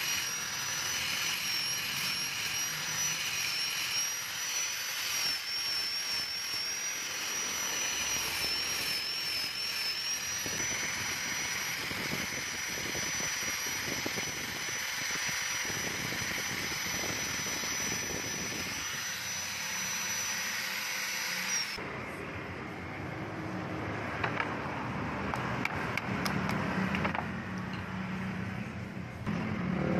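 Electric orbital sander running with a steady high whine while sanding a wooden knife-handle scale. It cuts off suddenly about 22 seconds in, leaving quieter handling sounds with a few sharp clicks.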